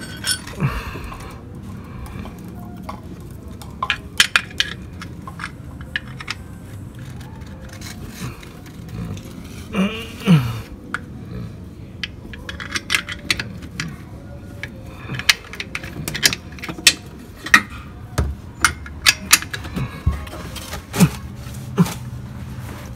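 A hand wrench clicks and clinks against metal while the bolts of a car's engine undercover panel are refitted. The clicks come irregularly, in scattered clusters, with the busiest stretch in the second half.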